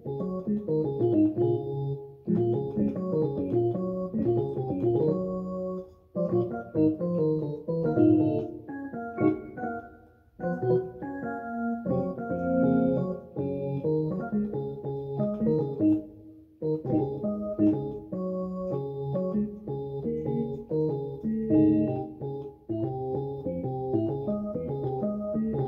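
Electronic keyboard played in sustained chords, in phrases broken by short pauses.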